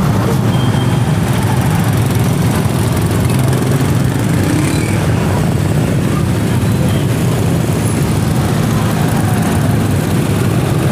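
Steady din of engines in congested, crawling traffic, with a low drone.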